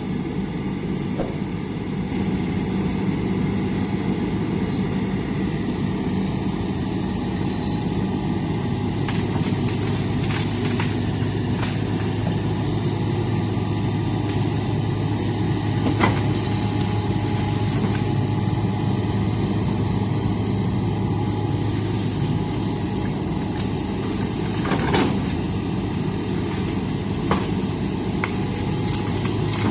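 Hitachi excavator's diesel engine running steadily with a low hum, broken by a few sharp knocks, the loudest about halfway through and again later on.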